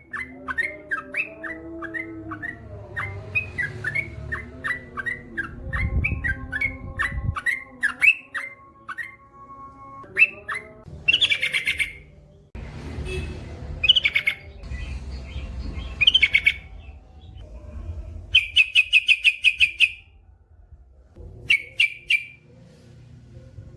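Yellow-vented bulbul (trucukan) singing: a quick run of repeated chirping notes, then several short, fast rattling trills in the second half, over a low background rumble.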